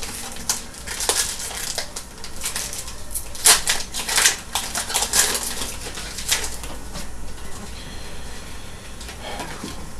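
Packs of 2011-12 Panini Titanium hockey cards being handled: irregular crinkling and rustling of wrappers and cards, with sharp crackles, the loudest about three and a half and four seconds in.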